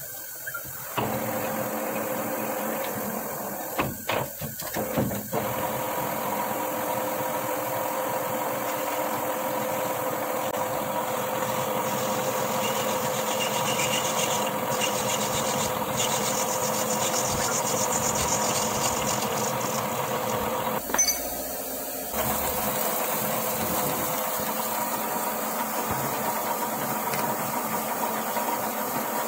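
Metal lathe starting up about a second in and running steadily with a constant gear whine, a few knocks soon after. A turning tool cuts the face of hex bar stock held in the three-jaw chuck, adding a hissing scrape in the middle stretch; after a brief dip the lathe runs on as a tailstock drill is fed into the spinning part.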